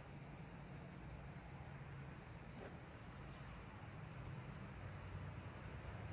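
Faint outdoor ambience: a steady low rumble under a series of short, high chirps repeating evenly, about one every 0.7 seconds.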